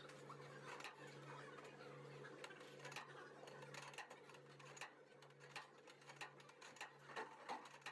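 Faint, irregular small clicks and taps over a steady low hum.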